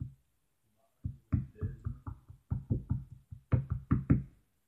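A quick, uneven run of knocks on a hard surface, about five a second, starting about a second in and loudest near the end.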